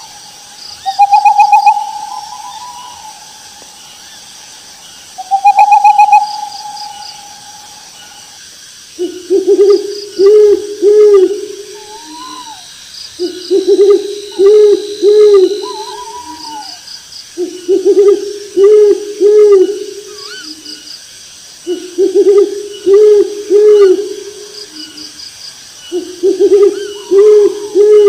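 Owl hooting: phrases of four or five quick low hoots, each phrase lasting about three seconds and repeating every four seconds or so from about nine seconds in. Before that, two loud, higher, drawn-out calls sound near the start and about five seconds in, over faint high chirping.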